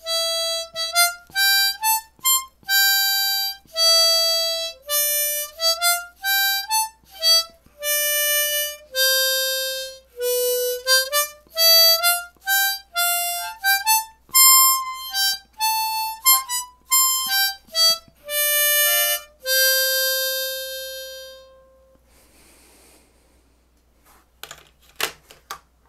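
A live, unaccompanied instrumental melody played one note at a time, a little sloppy on the notes, with some notes sliding into the next. It ends on a long held note that fades out about 22 seconds in, and a few faint clicks follow near the end.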